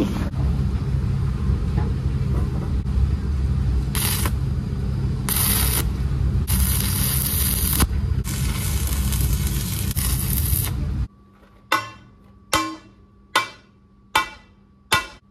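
Stick (arc) welding with a thin rod: the arc crackles and hisses steadily over a low hum, louder in several stretches. About eleven seconds in it cuts off suddenly, followed by five sharp, ringing knocks of metal on steel, about one every 0.8 s.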